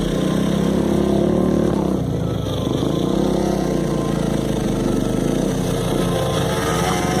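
Off-road motorcycle engines running, their pitch rising and falling.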